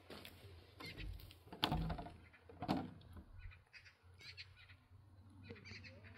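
Small birds chirping, with two sharp knocks about a second apart early on.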